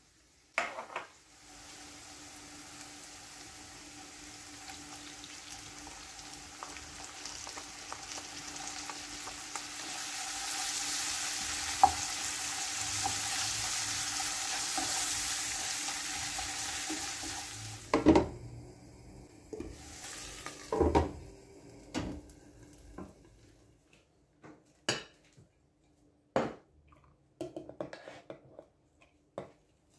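Tuna, onion and yellow peppers sizzling as they fry in a nonstick frying pan, stirred with a spatula; the sizzle grows louder about midway. More than halfway through, the sizzle gives way to scattered scrapes and knocks of a spatula and wooden bowl against a glass bowl of cooked dill rice.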